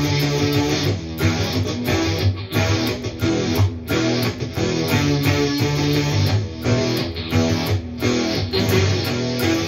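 Electric guitar played through a Digitech Dirty Robot synth pedal, with its drift control turned all the way down, giving a synth-like tone. It plays a continuous phrase of notes with sharp attacks.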